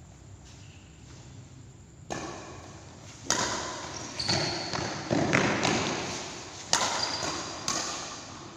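Badminton rally: several sharp racket strikes on the shuttlecock about a second apart, starting about two seconds in, each hit echoing in the large hall.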